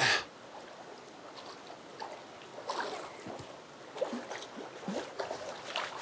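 Hooked brook trout splashing at the river's surface while being played on a fly rod: a few short splashes over the hiss of moving water.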